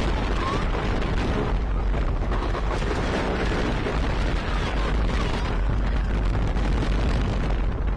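Wooden roller coaster train (Minebuster) running at speed: a steady rattle and rumble of the wheels on the wooden track, with heavy wind buffeting the microphone.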